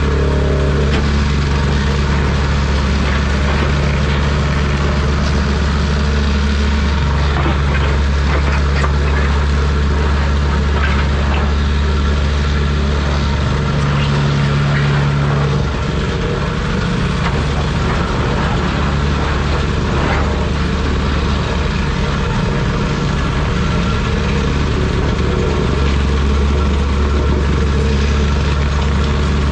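Volvo 235EL excavator's diesel engine running steadily while the machine works, a low drone that shifts in pitch and strength a few times, with a few faint clicks.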